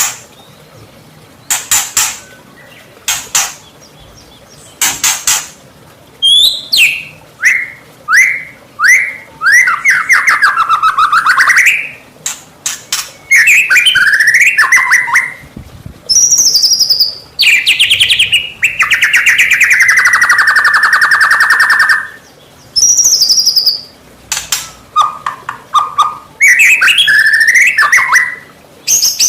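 White-rumped shama (murai batu) singing a loud, varied song: sharp clicking notes in the first few seconds, then a quick series of falling whistled notes, and a long rattling buzz about midway, followed by more varied warbled phrases.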